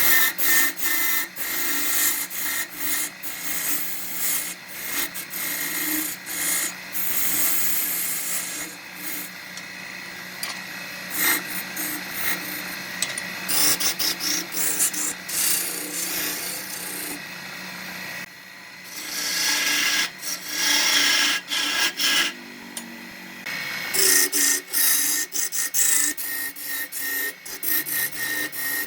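Wood lathe running with a steady motor hum while a tool scrapes against the spinning wood in uneven strokes, louder in stretches.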